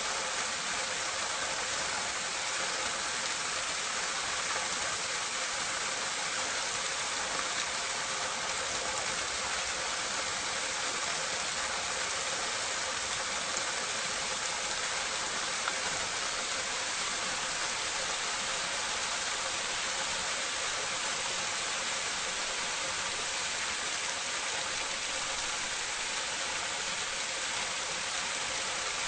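Water pouring steadily into a drain gully from a drainpipe, heard up close: a constant splashing rush with no breaks.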